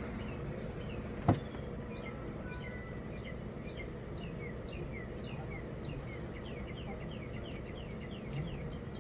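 A bird chirping: a long run of short, falling chirps, a couple a second, over a steady background hiss. A single sharp click comes about a second in.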